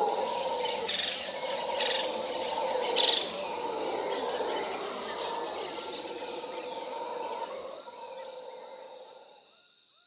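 Steady chorus of insects chirping, with a few short bird calls over it, fading out over the last few seconds; a quick repeated chirp comes in near the end.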